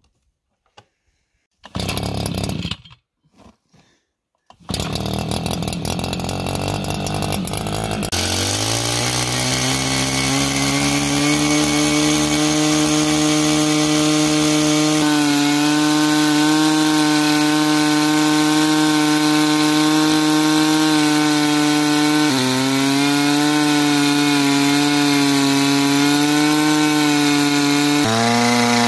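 Shaw portable backpack core drill's two-stroke engine starting about four and a half seconds in, revving up at about eight seconds, then running steadily at high speed as the water-flushed core bit cuts into rock. Its pitch drops slightly under load twice near the end.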